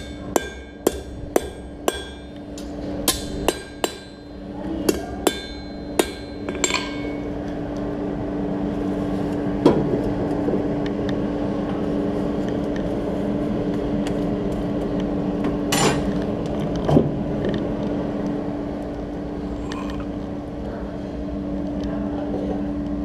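Blacksmith's hammer striking hot iron on an anvil, about ten ringing blows in an uneven rhythm over the first seven seconds, while a leaf is being forged. After that the strikes stop and a steady mechanical hum with a rushing noise carries on.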